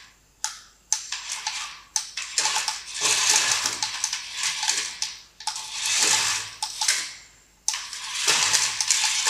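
Toy RC off-road truck's small electric drive motor and plastic gearbox whirring in bursts, starting and stopping about five times as it is driven back and forth.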